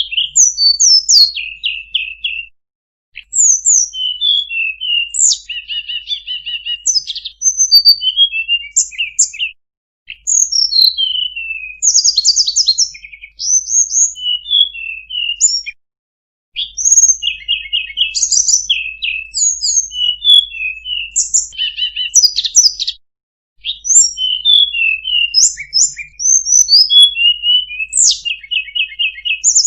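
Tledekan gunung singing a fast, varied song of short chirps, trills and whistled notes, packed with borrowed phrases (a full-isian song for training other songbirds). The song comes in runs broken by brief silent gaps about every six or seven seconds.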